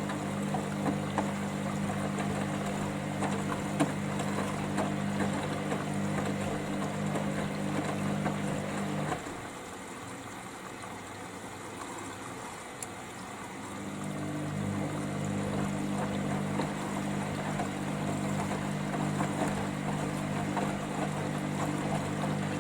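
Hoover Dynamic Next washing machine topping up with water during its rinse: a steady hum over rushing, splashing water. The hum drops away about nine seconds in and starts again some four seconds later.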